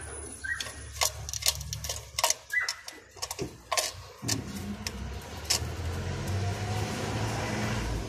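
Sharp clicks and rubbing from fingers handling a pigeon and its leg band right against the phone's microphone, loudest in the first half. From about halfway a steady low rumble takes over.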